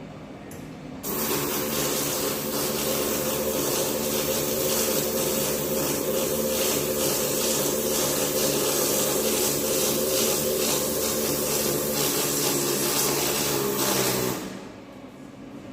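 Electric arc welding on a vehicle chassis frame: a steady crackling arc with a low hum underneath, laid as one continuous run of about thirteen seconds. It starts suddenly about a second in and cuts off near the end.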